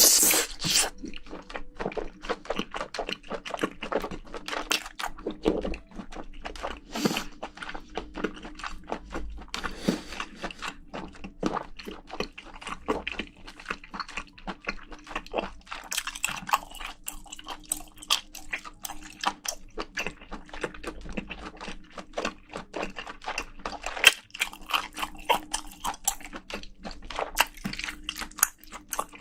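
Close-miked eating of spicy braised seafood with bean sprouts: wet chewing and crunching in a dense run of irregular small clicks and squishes, with a loud burst right at the start.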